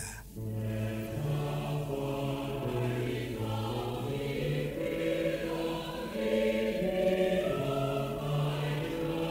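A choir singing slowly in long held chords that change every second or two, with a strong low bass line.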